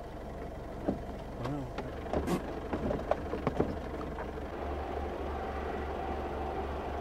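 Vehicle engine running with a steady low rumble that settles into an even pulsing about halfway through. Scattered short clicks and knocks come in the first half.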